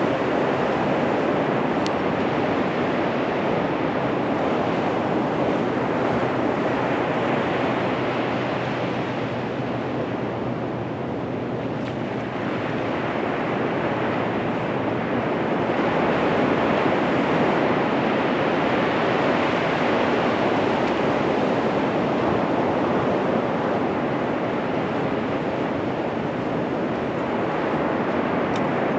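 Ocean surf breaking and washing up the beach, a continuous rushing wash that eases a little around ten seconds in and swells again a few seconds later.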